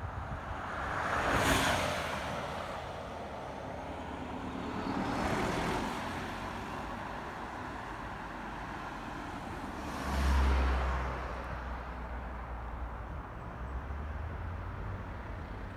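Road traffic: three cars pass one after another, each one's tyre and engine noise swelling and then fading. A low rumble comes in about ten seconds in and carries on.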